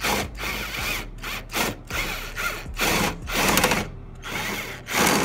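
Power drill with a driver bit screwing a locking bolt into the back of a TV wall-mount bracket, run in about ten short bursts as the trigger is pulsed to tighten it.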